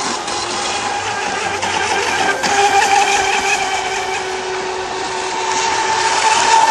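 Radio-controlled Mono1 electric racing boats running at speed: a steady high motor whine with a second, lower tone over a wide hiss, growing a little louder near the end.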